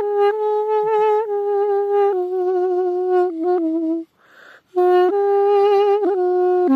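Balaban (duduk), a wooden double-reed pipe, played solo: a slow melody of long held notes, each joined by quick grace-note ornaments and stepping gradually down in pitch. There is a short break for breath just past halfway, then the melody resumes.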